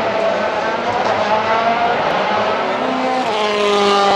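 Citroën DS3 WRC rally car's 1.6-litre turbocharged four-cylinder engine at full racing load, its note rising and falling through the gears. About three seconds in it revs up sharply and holds a high pitch.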